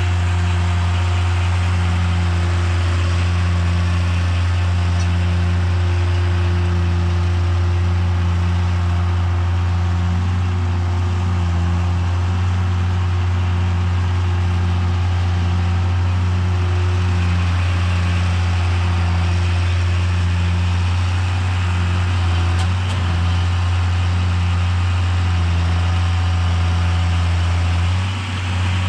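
John Deere 7510 tractor engine running steadily while pulling a round baler through the field, with a deep constant hum and a regular pulsing tone just above it. The sound dips briefly near the end.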